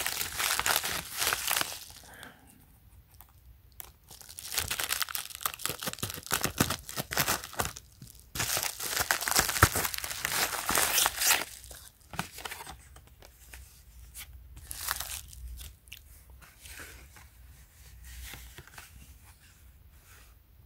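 Scissors cutting and a plastic bubble mailer tearing and crinkling as it is opened, in loud bursts through the first half, then lighter crinkling as the plastic-packed tube inside is handled.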